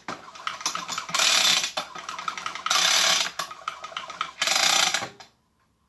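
Recoil pull-starter of a Homelite hedge trimmer's small two-stroke engine, pulled three times at about one-and-a-half-second intervals, with a rattling whirr of the cord and ratchet as the engine is turned over without firing. It is being cranked to spread freshly added oil through the cylinder.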